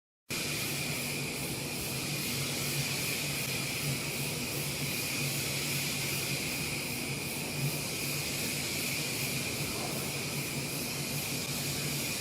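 CNC spring coiling machine powered up but not yet coiling: a steady hum and hiss with a constant high whine, cutting in suddenly at the start.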